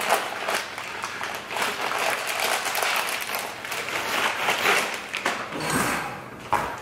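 Steel transfer case parts clinking and rattling in a dense patter of small clicks, with a couple of low knocks near the end, as the shaft and drive chain are worked into place in the case.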